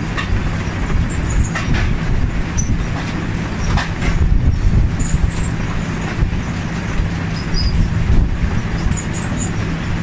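Potato harvester running: a steady low mechanical rumble and hum, with scattered knocks as potatoes tumble along its sorting conveyor.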